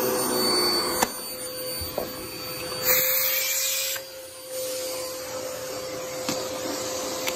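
Upright vacuum cleaner running over carpet, a steady motor whine over the rush of air. There is a sharp click about a second in, and the hiss grows louder for about a second near three seconds in before dipping briefly.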